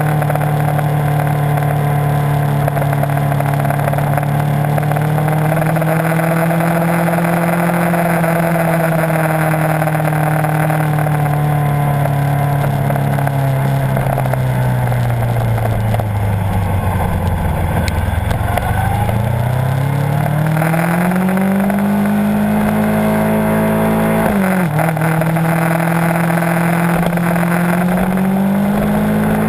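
Kawasaki Ninja 650's parallel-twin engine running at low revs while the bike rolls along. About halfway through the revs sink low, then climb as it accelerates. There is a brief sharp dip in revs about two-thirds of the way in, and they pull up again near the end.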